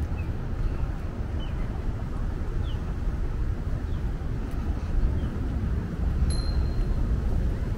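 Steady low outdoor rumble, with a few faint short chirps and a brief faint high tone just past six seconds in.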